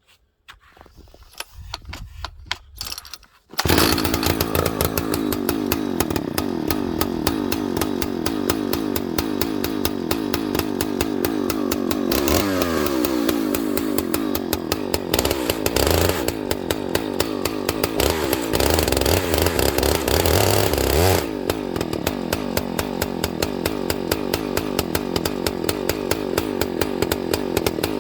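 Husqvarna 298XP two-stroke chainsaw being pull-started from cold with the decompression valve and choke set. A few short pulls are heard, then it catches about three and a half seconds in and keeps running. Its engine pitch dips and recovers several times between about 12 and 21 seconds.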